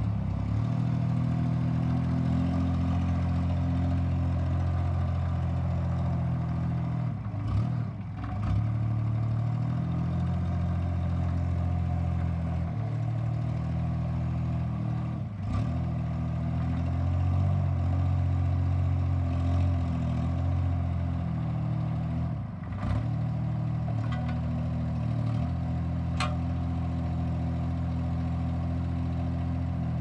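JCB Mini CX compact backhoe loader's diesel engine running steadily as the machine is driven and its loader and backhoe are worked. The engine note dips and shifts a few times, and there are a few short clicks and clanks.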